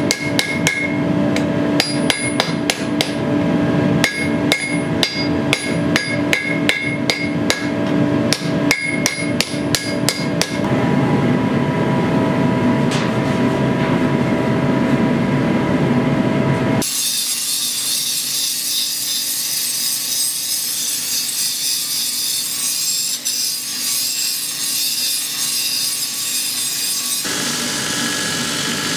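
Hand hammer striking a glowing sword blank on a steel anvil, about two to three blows a second for the first ten seconds, over the steady roar of a forge burner. The burner runs on alone for a few seconds, a steady high hiss follows, and near the end a belt grinder grinds the blade, throwing sparks.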